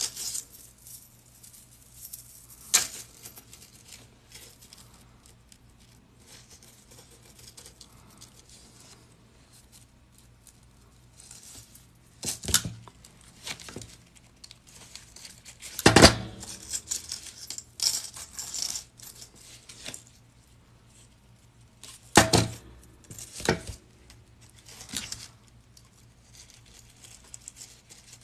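Metal jump rings clinking and pliers clicking and knocking against the work surface as rings are closed into a chainmail jelly cube: scattered sharp clicks and clinks with quiet stretches between, a few louder knocks about halfway through and two-thirds in.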